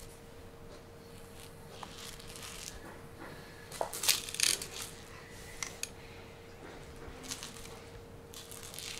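A Himalayan Persian kitten's claws and paws scrabbling at a fluffy toy on a wooden floor: a few short, scratchy rustles, the loudest about four seconds in, over a faint steady hum.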